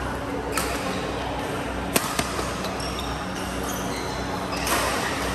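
Badminton rackets striking the shuttlecock during a rally: a few sharp cracks, the loudest about two seconds in, over a steady low hum.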